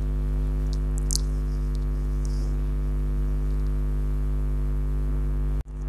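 Steady electrical mains hum with its ladder of overtones, a few faint ticks over it. The sound drops out for an instant near the end, at an edit cut.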